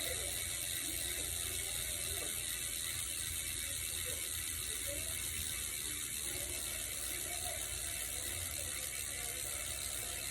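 Origin 8 bicycle rear hub freewheeling after two years' use: the freehub pawls click steadily and without a break as the wheel spins.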